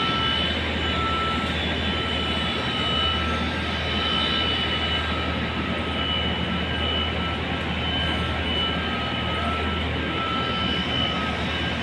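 Steady roar of industrial machinery with a low hum and a high-pitched whine that fades in and out.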